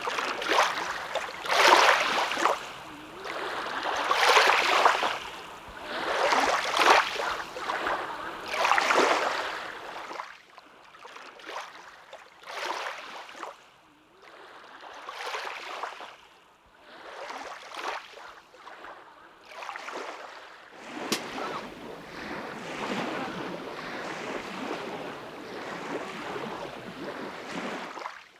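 Small lake waves washing onto the shore, one swell about every two seconds, loud at first and weaker after about ten seconds; a steadier rushing noise fills the last seven seconds.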